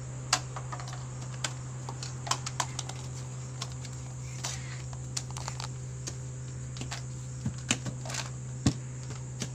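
Irregular light clicks and taps of plastic cups knocking as they are tossed and caught, over a steady low hum.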